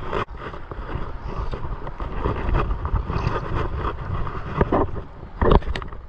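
Wind buffeting the microphone over the steady rush of a fast, riffled river, with a few brief knocks and scuffs, the loudest about five and a half seconds in.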